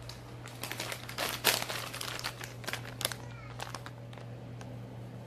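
Foil crisp packet (a bag of Lay's French Cheese chips) crinkling as it is picked up and handled. The crackling is thickest in the first three seconds, loudest at about one and a half seconds, and thins out after that.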